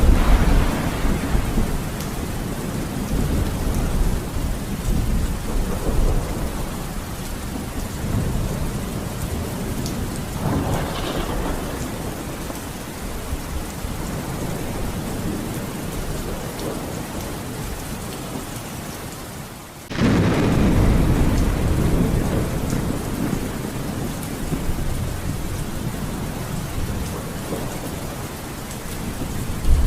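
Steady rain falling through a thunderstorm, with rolling rumbles of thunder. The loudest rumble breaks in suddenly about two-thirds of the way through and slowly dies away, and fainter rolls come near the start, a third of the way in, and at the end.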